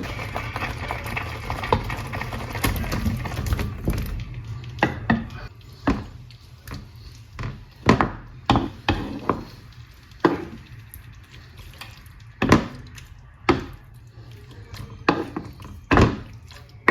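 Kitchen work sounds: a few seconds of running water at first, then irregular sharp knocks and clatter, like a knife on a chopping board and utensils on a counter.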